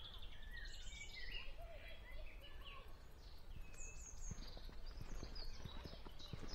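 Several small songbirds singing at once, with quick overlapping chirps and trills, over a low rumble. Faint footsteps come in from about four seconds in.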